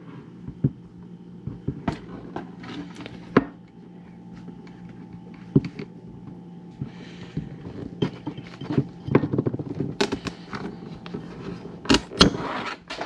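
Klein cable cutters biting through a taped stainless-braided PTFE hose: scattered clicks and crunches as the blades work into the steel braid, then a sharp snap near the end as the cut goes through.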